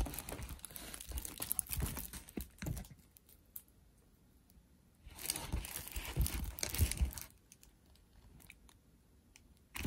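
Crinkling and rustling of a diamond-painting canvas and its plastic cover film being handled, in two spells: through the first three seconds and again from about five to seven seconds in.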